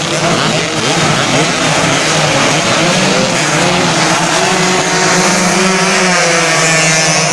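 A full grid of 120cc two-stroke underbone race motorcycles revving hard together and pulling away from the start. Many engine notes rise and fall over one another.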